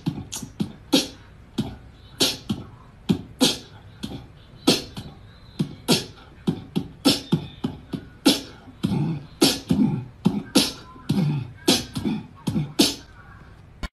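A quick, uneven series of sharp clicks and thuds, about two a second, like beatbox percussion.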